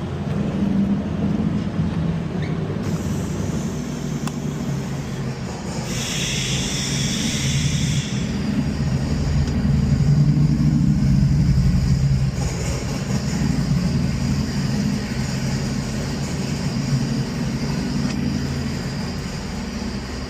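A steady low mechanical rumble that swells for a couple of seconds about ten seconds in, with a brief hiss about six seconds in.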